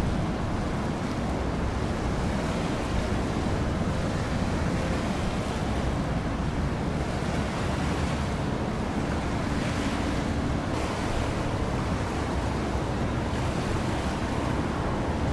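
Wind buffeting the microphone over the steady wash of choppy sea water; the water's hiss swells briefly about halfway through.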